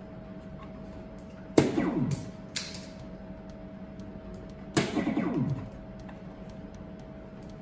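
Two soft-tip darts striking a DARTSLIVE 2 electronic dartboard, about three seconds apart, each hit setting off the machine's scoring sound effect: a sharp click followed by a quick run of falling electronic tones.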